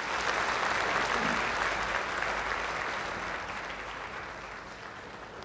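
Audience applauding, loudest near the start and slowly dying down.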